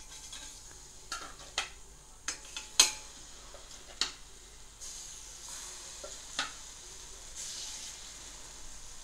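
Marinated fish pieces sizzling in hot oil on a dosa griddle (tawa) as they are laid down, with several light, irregular clicks and scrapes of a steel spoon against the griddle.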